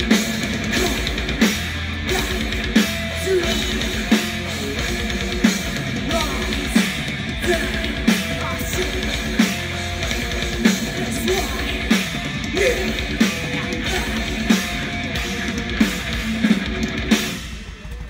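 Live heavy metal band: distorted electric guitars, bass guitar and drum kit playing hard, with heavy drum accents a little over a second apart. The music stops abruptly near the end as the song finishes.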